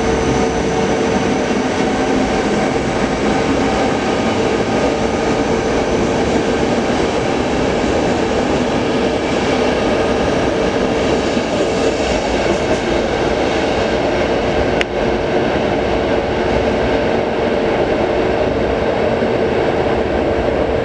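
A EuroCity train's passenger coaches roll along the platform in an underground station, giving a steady rumble of wheels on rails with a steady hum under it.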